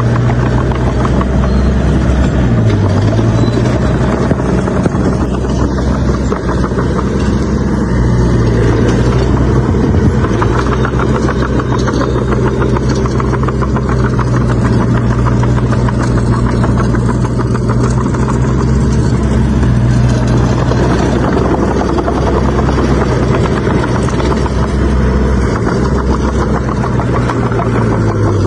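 Heavy diesel engine of earthmoving machinery running steadily, its pitch dipping briefly a few times, with a fine clattering rattle over the engine note.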